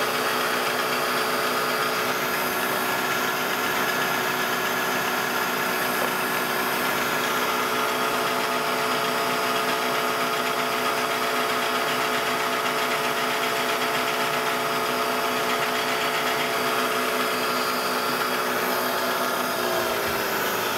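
Drill press running steadily as it drills a pilot hole through stacked metal pieces. Near the end the motor is switched off and spins down, its hum falling in pitch.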